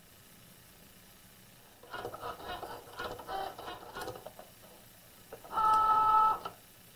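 Cricut Joy cutting machine working a foil transfer: its motors whir in short stop-start moves for about two seconds, then give a louder, steady two-tone whine for about a second near the end.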